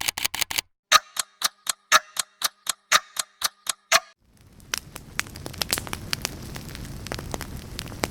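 A quick run of sharp clicks, then a clock-like ticking at about four ticks a second for about three seconds. After a brief gap comes a steady crackle: sharp pops over a soft hiss.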